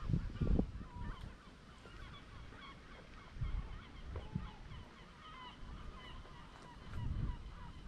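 A flock of birds chirping and calling all at once, many short overlapping calls, with a few low rumbling bumps near the start, about halfway through and near the end.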